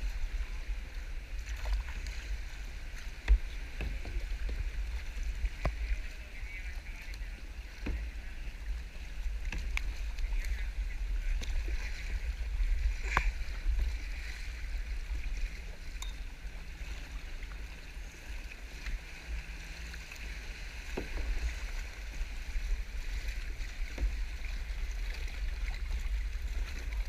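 Sea kayak being paddled through choppy coastal water: paddle strokes splashing and dripping over a steady low rumble, with a few sharp knocks, the loudest about 3 seconds in.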